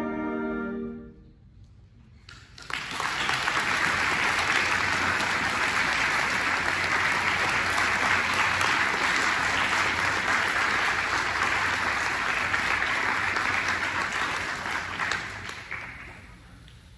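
An orchestra's held final chord dies away about a second in; after a brief hush, audience applause starts and carries on until it tapers off near the end.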